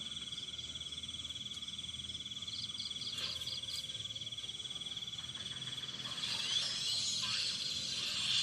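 Crickets trilling: one continuous, rapidly pulsing high trill, with a second insect adding a short run of repeated chirps a few seconds in. A louder hissing rustle comes in for the last couple of seconds.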